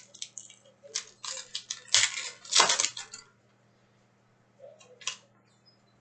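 Trading card packs and cards being handled, crinkling and rustling in several short bursts. The loudest bursts come about two and two and a half seconds in, then one more brief rustle near the end.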